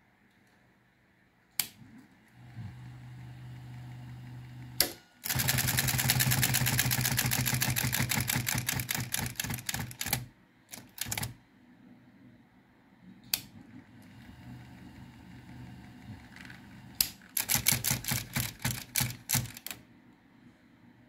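Olympia electric typewriter: a switch click, the motor humming, then a fast run of typebar strikes that grows weaker and more ragged before stopping, as the typing mechanism runs on the motor's coast-down. Later come another click, a fainter hum and a second, shorter run of strikes that slows and stops.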